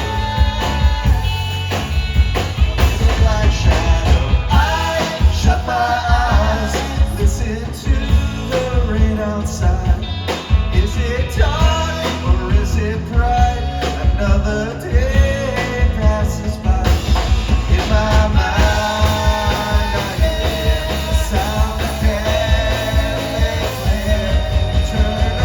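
A live jangle-pop band plays a song with a lead vocal over electric guitar, bass and drums, at a steady, loud level.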